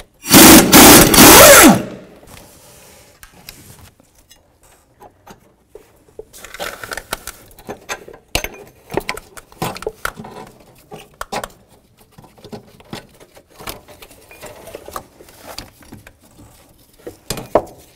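A pneumatic impact gun runs loudly for about a second and a half, spinning a nut on the engine mount. Scattered light metallic clicks and clinks follow as a socket, extension and ratchet are worked by hand on the mount.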